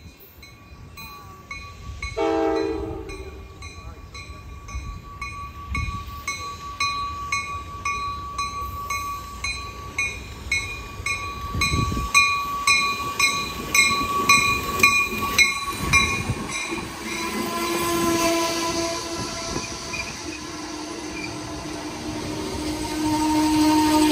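Amtrak Downeaster passenger train pulling into the station. It sounds one short horn blast about two seconds in, and a grade-crossing bell rings with a fast, even beat until about halfway through. Then the cars roll past close by with a steady squeal as the train slows for its stop.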